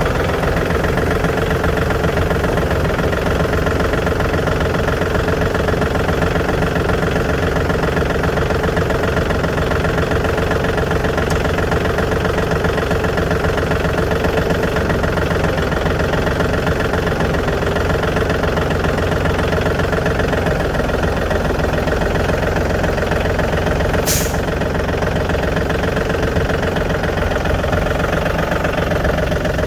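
Diesel truck engine running steadily with an even drone, and a single short click about two-thirds of the way through.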